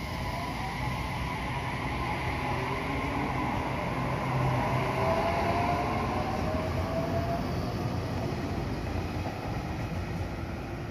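JR Kyushu 817 series electric train pulling out of the station and accelerating past, its inverter-driven traction motors whining in rising tones over the running noise of the wheels on the rails. It is loudest about halfway through, as the cars go by.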